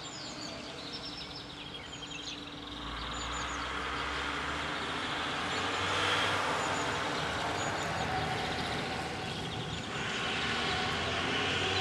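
Outdoor ambience under a thunderstorm: birds chirping, then a rush of noise with a low rumble that builds to a peak about six seconds in and swells again near the end.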